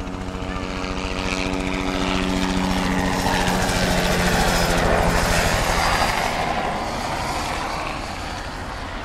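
Helicopter flying past, its rotor beating in a fast, even chop over a steady engine hum. It grows louder to a peak about five seconds in, then fades as it moves away.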